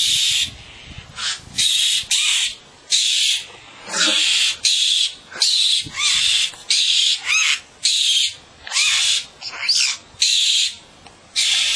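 A bird giving harsh, rasping scolding calls, about one a second, with a few short rising whistles between them. This is typical of birds mobbing a person who is close to their young.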